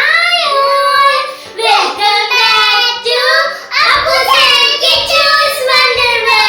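A child singing a high melody in long, sliding held notes, with faint music underneath; a soft low beat comes in about four seconds in.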